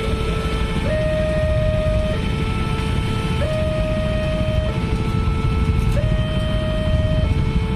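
Railway level-crossing warning alarm from the crossing's horn loudspeaker: an electronic two-tone signal alternating between a lower and a higher note, each held a little over a second, which sounds while the barriers are down for an approaching train. Under it runs a steady low rumble.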